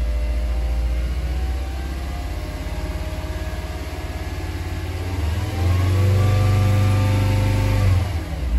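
Volkswagen Jetta MK5 2.5 five-cylinder engine on the stock 150 hp exhaust, revved lightly in neutral after warming up. The revs ease down at first, then rise about five seconds in, are held for roughly three seconds and drop back near the end. Heard from inside the cabin with the window open.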